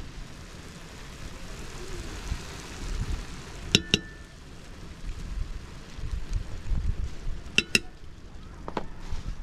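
Metal spoon clinking as seasoning is spooned onto meat in a steel pot: two quick double clinks about four seconds apart, then a lighter click, over a low rumble of wind on the microphone.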